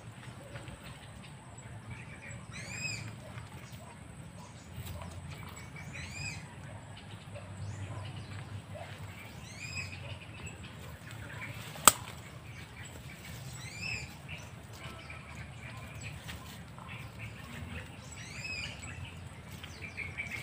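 A bird calling over and over, a short arched note every two to four seconds, above a low steady rumble. A single sharp click about twelve seconds in is the loudest sound.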